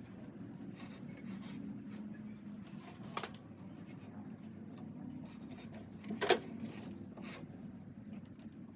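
Scattered clicks and knocks of tools and metal parts being handled, the sharpest knock about six seconds in, over a low steady hum.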